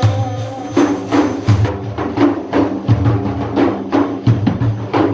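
Drums playing a steady rhythm in religious praise music, deep booming strokes alternating with sharper slaps, at about two to three strokes a second.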